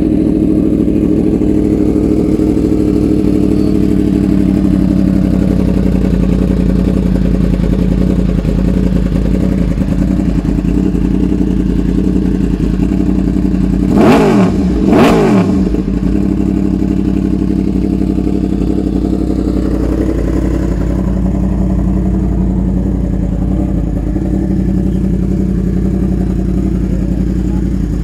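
Yamaha R1's inline-four engine idling steadily through an SC Project full exhaust. About halfway through it is blipped twice, a second apart, the revs rising sharply and falling straight back to idle each time.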